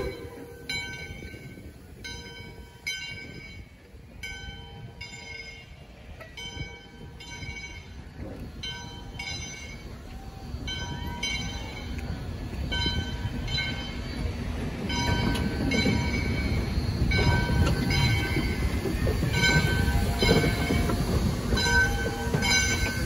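A passenger train's coaches rolling past close by, the wheels rumbling on the rails and growing louder about halfway through. A bell rings steadily throughout, about one and a half strokes a second.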